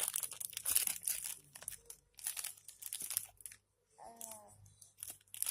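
Plastic crinkling and rustling in quick, irregular bursts as a squishy toy is handled, with a brief voice sound about four seconds in.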